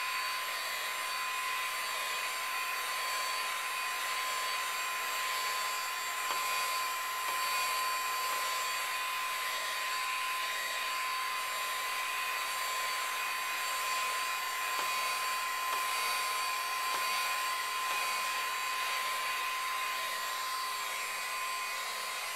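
Heat gun blowing hot air steadily over a PS3 motherboard, with a constant high whine over the rush of air, reflowing the solder under the CPU and GPU.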